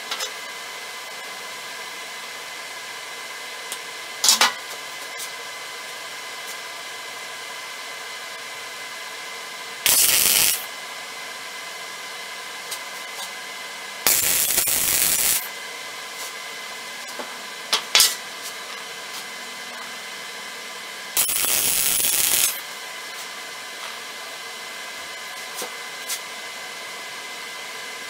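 MIG welding arc from a Lincoln 140MP welder, crackling and hissing in three short welds of about one to one and a half seconds each as a steel nut is tacked onto a rod. A couple of sharp clicks come between them.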